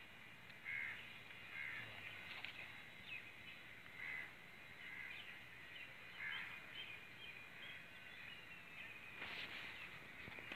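Faint bird calls: short calls repeated every second or so, with lighter chirping between them.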